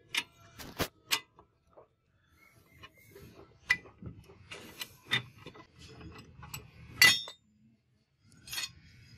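A steel chopper blade and a bench vise clinking and clanking as the blade is clamped and repositioned in the jaws and the vise handle is turned. It comes as a series of sharp, separate metal clicks and knocks, the loudest about seven seconds in.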